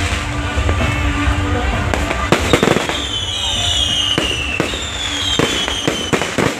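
Fireworks going off: a string of sharp bangs and pops, with high whistling fireworks gliding down in pitch from about three seconds in.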